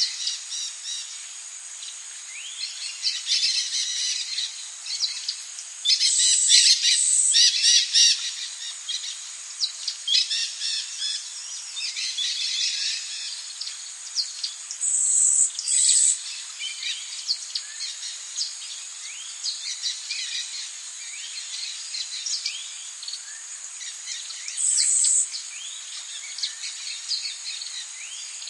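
Rainforest ambience: many birds chirping and calling over a steady, high-pitched insect drone. The calls are loudest in a dense burst about six to eight seconds in, with shorter shrill bursts about halfway through and again near the end.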